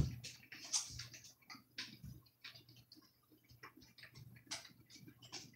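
Faint, irregular small clicks and rustles close to the microphone, with no steady rhythm.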